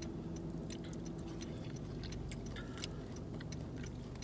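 Soft eating sounds: a plastic fork picking at greens in a foam cup and chewing, heard as many small irregular clicks over a steady low hum inside a car cabin.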